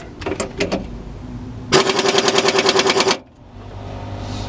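Pneumatic impact wrench hammering rapidly for about a second and a half on a seized brake chamber mounting nut, without breaking it loose while the air supply runs low. After it stops, an air compressor starts up with a steady low hum.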